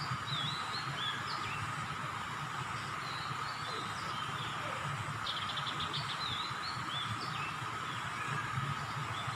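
Small birds chirping: repeated short, sliding high calls, with a quick rattling trill about five seconds in, over a steady mid-pitched hum and low background noise.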